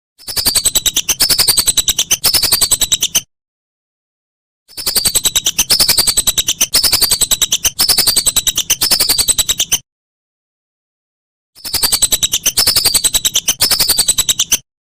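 Whistling duck (belibis) calling: high, descending whistled notes repeated about two a second, in three bursts broken by dead silence.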